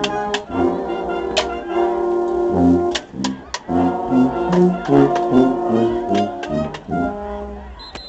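Marching band playing a loud brass tune: sousaphones carry a moving bass line under trumpets and horns, punctuated by snare drum and cymbal hits. The playing thins out just before the end.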